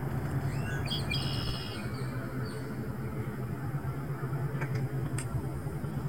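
A bird gives a short call about a second in, over a steady low rumble of outdoor background noise, with a few faint clicks near the end.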